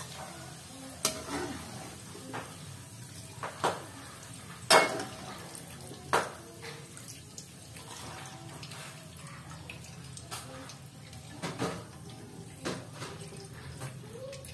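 Metal slotted skimmer clinking and knocking against a metal wok, about a dozen irregular strikes with a brief ring, as half-fried diced potatoes are scooped out of the oil to drain. Under it, hot frying oil sizzles steadily and low.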